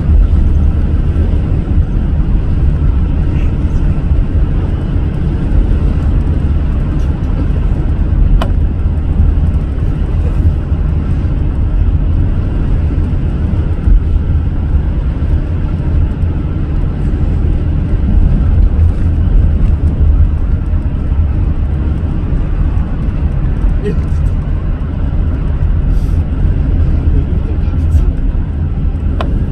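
Steady road noise of a car driving at speed: a constant low rumble with tyre hiss and no breaks.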